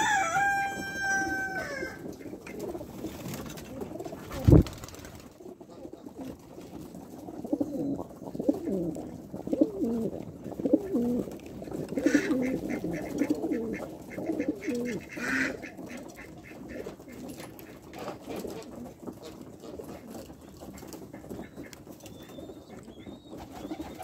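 A flock of homing pigeons cooing, with a flurry of wing flaps about halfway through. A rooster's crow trails off in the first two seconds, and there is one sharp knock about four seconds in.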